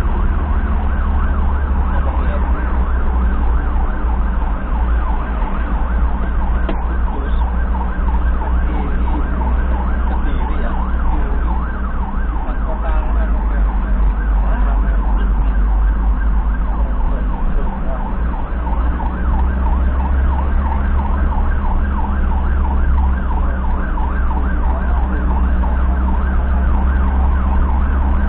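Emergency siren cycling rapidly up and down in a fast yelp, heard from inside the ambulance's cab over a steady, deep rumble of engine and road noise.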